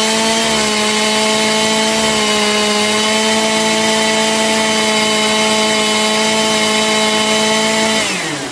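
Stihl MS 181 C two-stroke chainsaw engine held at wide-open throttle, running steadily at about 13,000 RPM on a maximum-RPM check of the carburettor's high setting. Near the end the throttle is released and the revs drop quickly toward idle.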